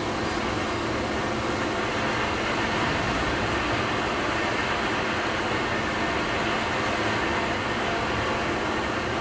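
Steady mechanical drone of textile dyeing machinery running, an even rushing noise with a faint constant hum underneath.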